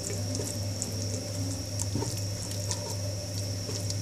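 Spatula stirring and scraping wet coriander-leaf paste in a non-stick pan on low heat: soft squishing with scattered light scrapes as the paste's water cooks off. A steady low hum sits underneath.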